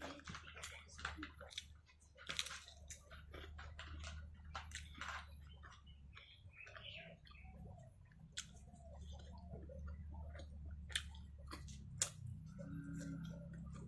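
A person chewing a mouthful of rice and curry, with wet irregular mouth clicks and smacks over a steady low hum. A few sharper, louder clicks come about two seconds in and twice near the end.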